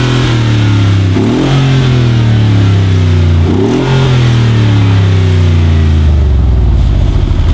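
Tuned Mercedes-AMG G63's twin-turbo V8 revved through its side-exit exhausts. There are two sharp throttle blips, about one and three and a half seconds in, each letting the revs fall back slowly. The engine then settles to a steady idle about six seconds in.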